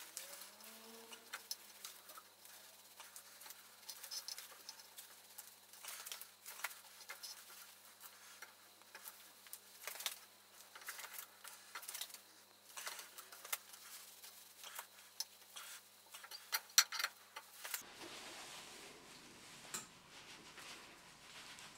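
Faint, irregular clicks and light metallic ticks of a tap wrench working a tap back and forth in a drilled bolt, the sound sped up; a few louder clicks come about three-quarters of the way through.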